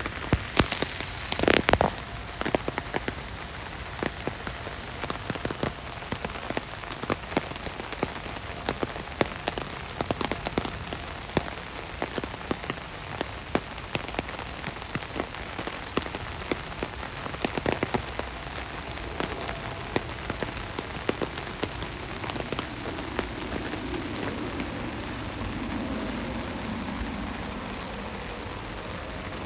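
Rain pattering on a bus window, with many sharp drop clicks over a steady hiss and a brief louder rush about a second in. Toward the end the low hum of the moving bus grows underneath.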